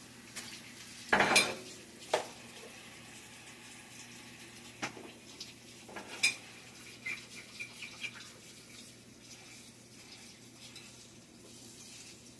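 A plate and cutlery clattering as they are handled and knocked together. There is a loud burst of clatter about a second in, another knock shortly after, single clacks around five and six seconds in, and a few light clinks near eight seconds.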